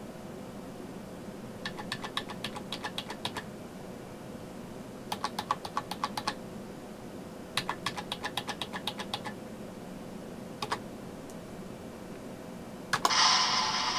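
Keys of an IBM numeric keypad pressed in three quick runs of clicks, then once more on its own. Near the end a much louder, sustained sound cuts in.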